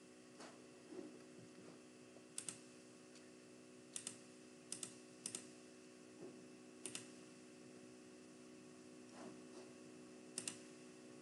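Faint, scattered clicks of a computer mouse and keys, about nine in all, some in quick pairs like double-clicks, over a low steady hum.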